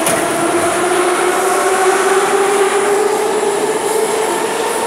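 Moscow metro train running, heard from inside the car: a rushing rumble of wheels and air with the traction motors' whine slowly rising in pitch as the train gathers speed.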